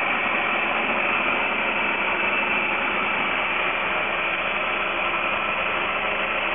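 Countertop food processor motor running steadily, chopping a chicken meatloaf mixture. It makes an even whirring with a faint high whine.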